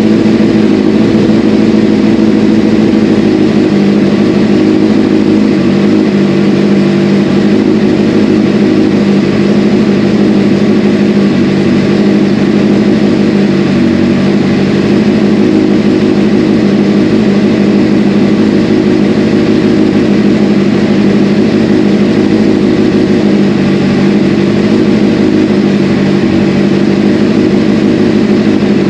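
Honda CBR600RR's inline-four engine idling steadily, with no revving, being run with fresh coolant in its newly installed radiator.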